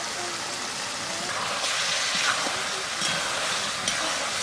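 Uncovered curry of taro stolons and snails sizzling and steaming in a metal wok, the hiss growing louder about a second in as it is stirred. A metal spatula clicks against the wok a couple of times near the end.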